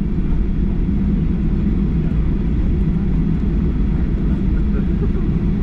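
Steady low rumble inside the cabin of a Boeing 737-8 taxiing after landing: engines at low power and wheels rolling on the taxiway, heard from a window seat over the wing.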